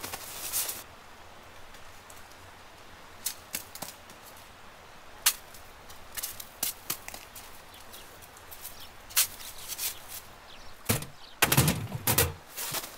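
Scattered light clicks and taps of thin metal wire stands being unfolded and set into snow, then a cluster of louder knocks and thuds near the end as an aluminium box is set down on a stand.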